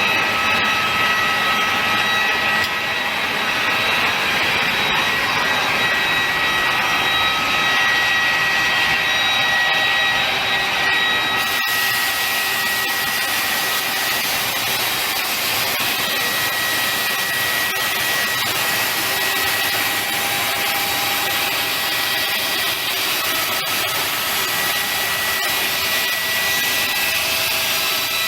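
JIH NC36L automatic saw machine cutting through a 250 mm round bar: a loud, steady cutting noise with high whining tones that come and go. It breaks off for an instant about a third of the way through, and the hiss is brighter after that.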